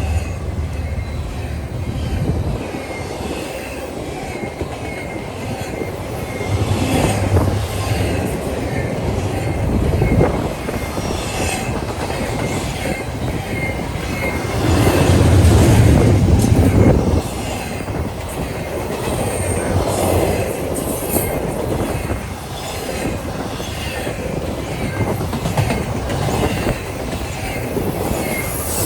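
A train rolling past on the rails with a steady rumble, its wheels clicking over the rail joints and squealing at times. The rumble swells about halfway through.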